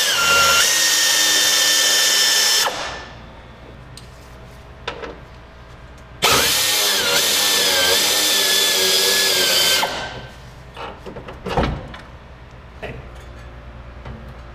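Air ratchet running in two bursts, one of about three seconds and one of nearly four, each a steady high whine with a hiss of air, spinning out the radiator mounting bolts. A few light metal clinks come between and after the bursts.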